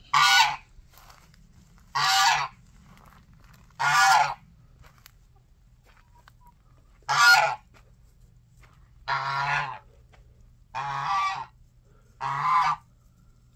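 Domestic white goose honking repeatedly: seven loud, separate honks, one every one to three seconds.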